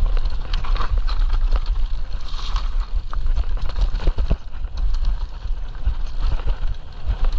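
Electric mountain bike riding down a rough, stony trail: tyres crunching over loose rock with frequent irregular knocks and rattles from the bike, over a steady low rumble.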